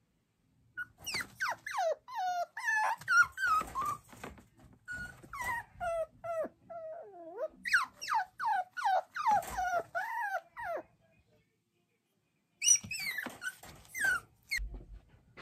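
Puppy whining and yelping, a rapid string of high cries that each fall in pitch, breaking off about eleven seconds in and starting again a second or so later. It is crying at being left alone in its crate.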